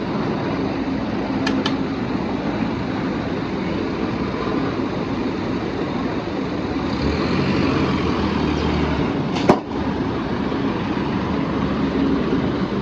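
Steady vehicle engine and traffic noise, swelling as a vehicle passes between about 7 and 9 seconds in. There are two light clicks early, and a single sharp metallic knock about nine and a half seconds in.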